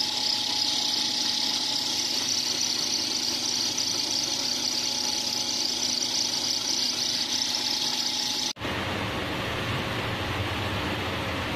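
Pet food production machinery running steadily, a hissing whirr with a faint hum underneath. About two-thirds of the way through it changes abruptly to a lower, fuller machine drone.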